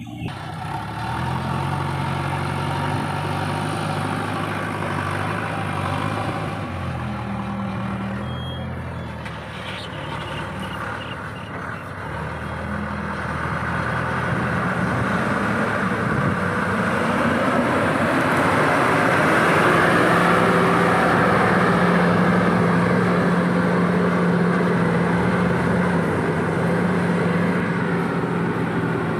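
Heavy diesel engines running steadily. They are those of a JCB 3DX backhoe loader and a stone-laden Ashok Leyland truck working to get the truck out of soft, muddy ground. The engine note grows louder from about halfway through and stays strong as the truck pulls away under load.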